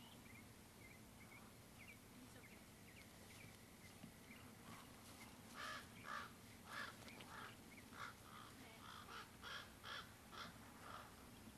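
Cheetah calling: a run of about a dozen short, bird-like chirps, roughly two a second, starting about halfway through.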